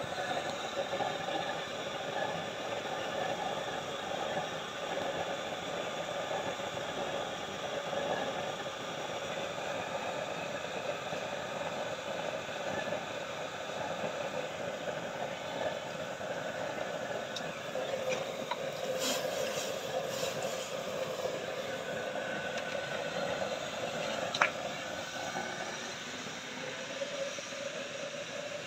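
Heavy-duty waste-oil burner with a 9-inch chamber burning at a full blue flame: a steady rushing of fan-blown air and flame. One sharp click sounds late on.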